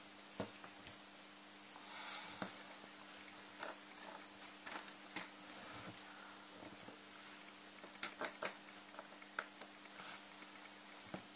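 Faint room tone with a steady low electrical hum, broken by scattered small clicks and taps, a quick cluster of them about eight seconds in.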